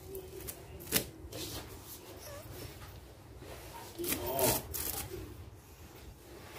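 A kitten's claws and paws scratching and rustling on a woven rope basket as it climbs on it. There is a sharp knock about a second in and a louder spell of rustling and knocks around four seconds in.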